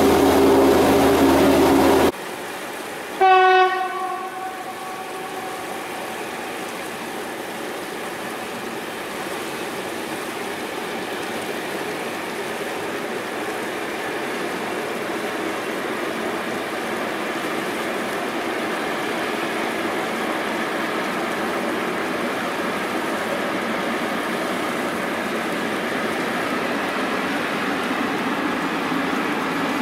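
An electric locomotive passing close with a loud steady hum of several tones, cut off after about two seconds. A little after three seconds a locomotive horn sounds one short single-note blast, then the rolling noise of a freight train hauled by electric locomotives runs steadily, slowly growing louder.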